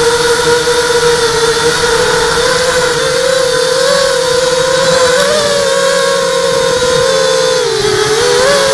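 Electric motors and propellers of a ZMR hexacopter whining steadily in flight. The pitch wavers with the throttle, dipping near the end and then rising again.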